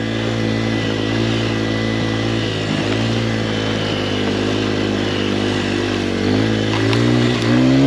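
Dirt bike engine running at a steady throttle, then its pitch rising as the throttle opens about six seconds in and again near the end.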